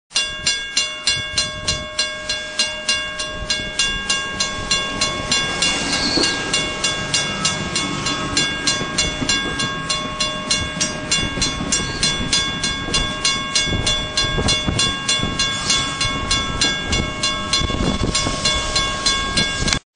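Rhythmic train chuffing, about three even beats a second, over a steady hum of several held tones; it cuts off suddenly near the end.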